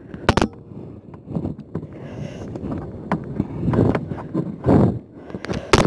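Rustling and footsteps of someone moving through brambles and dry undergrowth, with wind buffeting the microphone, and a sharp knock just after the start and another near the end.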